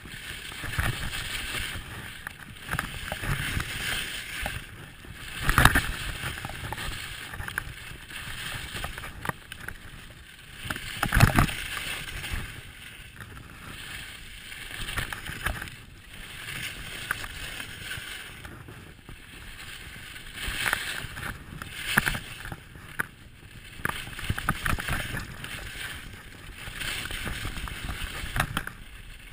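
Skis carving and scraping on packed groomed snow, a swishing hiss that swells and fades with each turn. A few heavy thumps stand out, the loudest about 6 and 11 seconds in.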